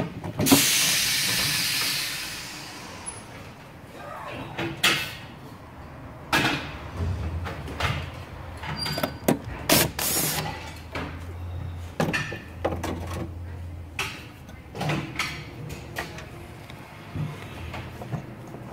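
A burst of hiss near the start, then scattered knocks, clicks and plastic rattles as hands and a socket wrench work loose the plastic air intake duct and engine cover in a Ford F150's engine bay.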